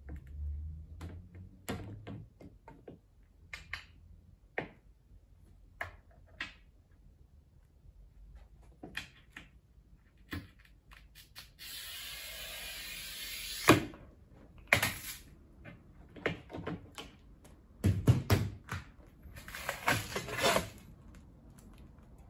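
Glass cutter scoring a sheet of wired glass along a straightedge: a steady scratchy hiss for about two seconds, ending in a sharp click. Scattered light clicks and knocks from handling the straightedge and glass, then a cluster of knocks and cracks as the scored strip is broken off.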